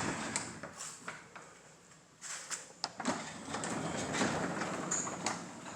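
Sectional garage door rolling along its tracks, moved by hand, its rollers rumbling with scattered clicks. The rumble dies away, then starts again a little after two seconds in. The door is balanced by new dual torsion springs and rolls freely.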